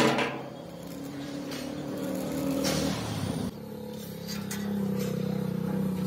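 Handheld electric power tool motor running on sheet steel, a steady whine after a sharp knock at the start. It breaks off abruptly about three and a half seconds in and carries on again at a slightly higher pitch.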